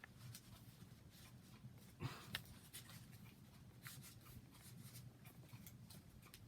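Near silence: room tone with faint scattered clicks and a brief soft rustle about two seconds in.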